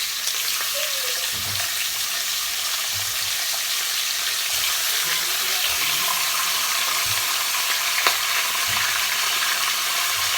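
Pieces of meat sizzling steadily as they sear in hot ghee with cardamom and bay leaves in a pot. There is a single sharp click about eight seconds in.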